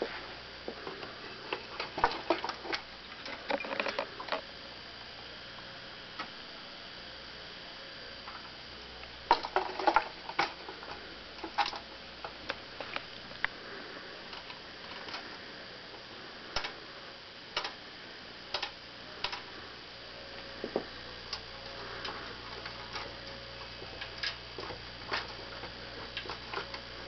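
Light metallic clicks and taps from a 1930s Gunthermann tinplate clockwork fire engine toy. They come in quick clusters near the start and again about ten seconds in, then as single clicks roughly once a second.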